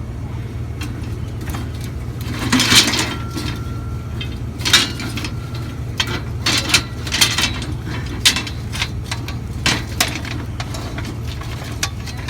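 Metal scrap clanking and clinking in a dozen or so sharp knocks as it is shifted and loaded into a vehicle, the loudest about three seconds in, with a brief metallic ring after one knock. A vehicle engine idles steadily underneath.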